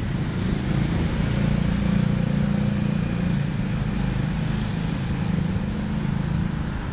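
A car driving past on the bridge roadway beside the footpath, swelling about two seconds in and then slowly fading, with wind buffeting the microphone throughout.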